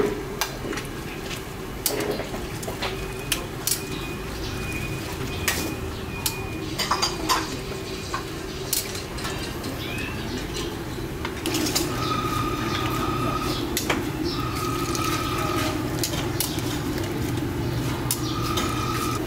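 Bowls, ladles and utensils clinking and knocking at a fish noodle stall, in many short sharp clicks over a steady background hum that grows louder about halfway through. Several short, steady high tones sound now and then.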